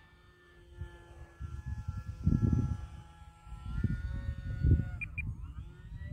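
Electric motor and propeller of a small RC model Cessna whining steadily in flight. Its pitch rises a little about four seconds in, then dips and climbs again near the end. Gusts of wind buffet the microphone.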